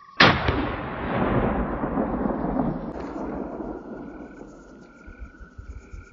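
A single .308 Winchester rifle shot from a Bergara B14 Timber: one sharp crack just after the start, followed by a long rolling echo that dies away over several seconds. Under the fading echo a steady high trill and a short call repeating about once a second carry on.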